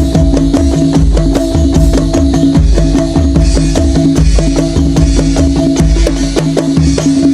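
Topeng Ireng dance accompaniment music: loud, fast, dense drumming over a repeating pattern of held pitched notes.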